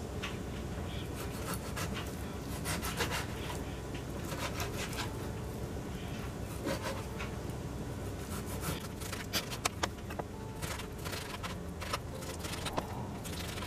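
Chef's knife cutting raw pork shoulder into chunks on a plastic cutting board: rubbing, sawing strokes through the meat, with irregular knocks of the blade on the board.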